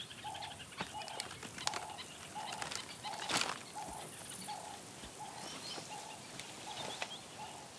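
Wild ambience: a bird repeats a single low hooting note at an even pace, about three notes every two seconds, with faint higher chirps. There are a few sharp snaps, the loudest about three and a half seconds in.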